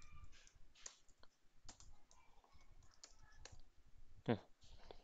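Faint computer keyboard keystrokes and mouse clicks, sparse and irregular.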